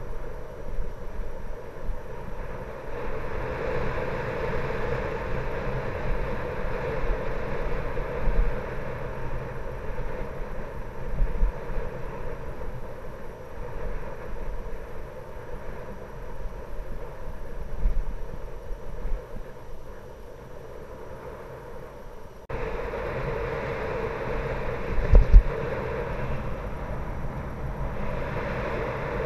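Wind buffeting a bicycle-mounted camera's microphone while riding, with tyres rumbling over rough pavement and a few low jolts from bumps. The sound changes abruptly about three-quarters of the way through, and a couple of hard jolts follow soon after.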